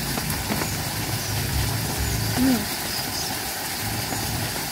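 Steady low rumble with faint, repeating high chirps, and a short hummed "mm" from someone eating about two and a half seconds in.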